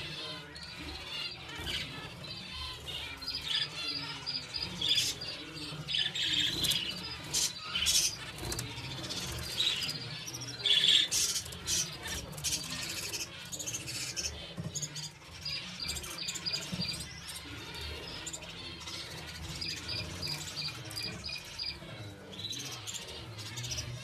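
White zebra finches calling: rapid, repeated short chirps from several birds at once, with quick ticks among them.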